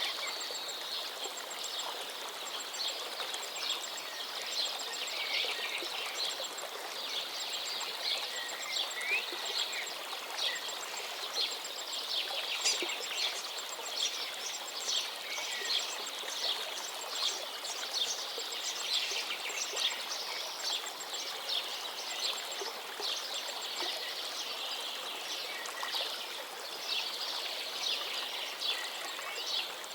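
A flowing river rushing steadily, with birds chirping throughout and a thin, rapid high-pitched ticking call that comes and goes.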